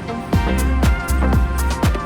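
Background music with a steady electronic beat: a kick drum about twice a second over a bass line, with hi-hat strokes.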